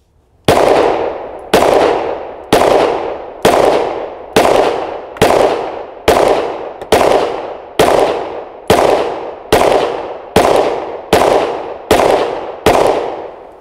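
Sig Sauer M17 9mm pistol fired in steady, unhurried semi-automatic fire: about fifteen shots a little under a second apart, each trailing off in a fading echo before the next.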